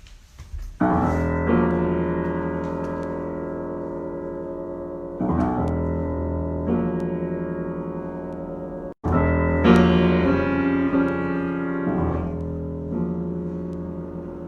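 Piano improvisation: full chords struck about a second in, again around five seconds and nine seconds, each left ringing and slowly dying away. There is a brief dropout just before the third chord.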